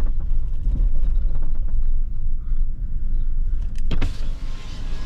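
Low rumble of a vehicle's engine and tyres inside the cab while it creeps along a paved road; about four seconds in, the driver's power window goes down and the outside air noise comes in with a sudden hiss.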